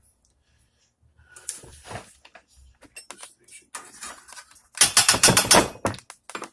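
A run of rapid clicks and knocks from objects being handled, densest and loudest for about a second near the end, after a short quiet start.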